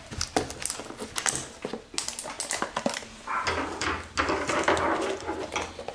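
Cardboard and packaging being handled: a string of small clicks and taps as a hand reaches into a cardboard display box of mystery-mini blind boxes, then a longer, denser rustling over the second half.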